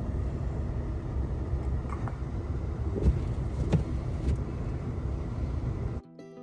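A motor vehicle running with a steady low rumble, with a few light knocks. Near the end it cuts off abruptly and guitar music begins.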